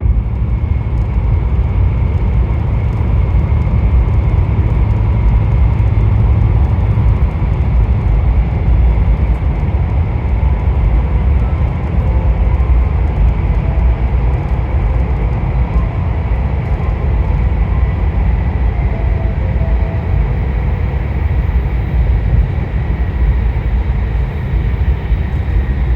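Steady running noise heard inside a passenger car of an E2 series Shinkansen travelling at speed: a continuous deep rumble with a faint hum above it.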